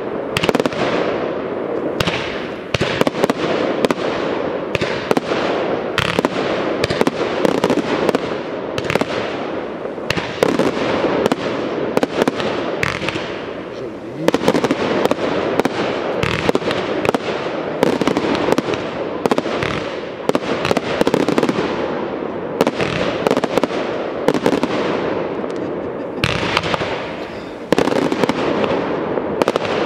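Aerial fireworks display: a rapid, continuous run of shell bursts and crackling stars, several sharp bangs a second throughout, growing louder about halfway through and again in a dense flurry near the end.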